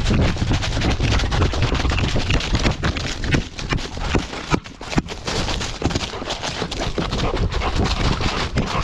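A tracking dog trotting and running through dry fallen leaves, heard from a camera on its collar: rapid, irregular crunching footfalls in the leaf litter over a steady low rumble, easing off briefly about halfway through.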